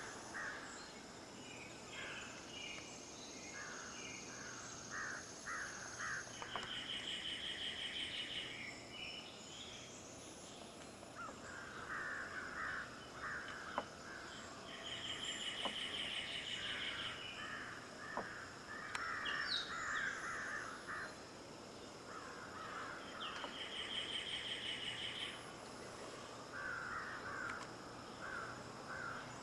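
Outdoor insect chorus: a steady high-pitched trill, with louder pulsing trills that swell about every eight seconds and bursts of lower chirping calls in between. A couple of sharp ticks stand out about halfway through.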